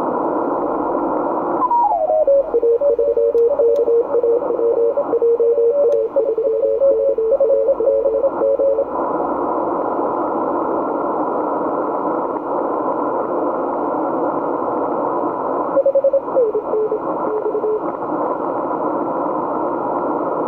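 Morse code (CW) signals heard through an Icom IC-7600 shortwave receiver on the 80 m band, as keyed beeping tones over a steady hiss of band noise. About two seconds in, the tone pitch slides down from high to low, as when the receiver is tuned onto a signal. Keyed tones, two slightly different pitches, continue until about nine seconds in. Near sixteen seconds a short tone slides down again.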